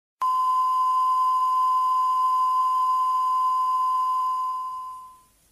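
Steady 1 kHz sine test tone of a television test card, starting a moment in and fading out near the end.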